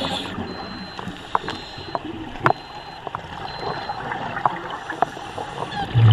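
Underwater sound of a scuba diver's exhaled bubbles gurgling from the regulator, with scattered sharp clicks and pops.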